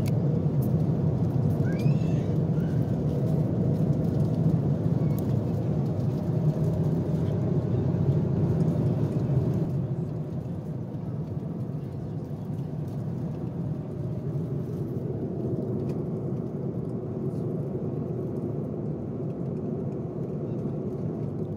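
Steady airliner cabin drone in cruise, the engine and airflow noise of an Airbus A330-200 heard from a window seat. It drops a little in level about ten seconds in.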